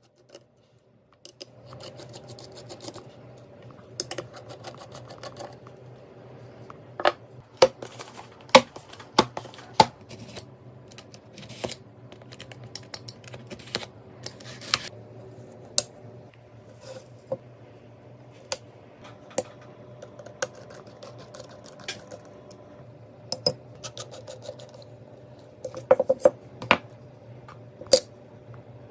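Irregular sharp clicks and light knocks of computer hardware being handled and fitted together during a PC build, over a steady low hum.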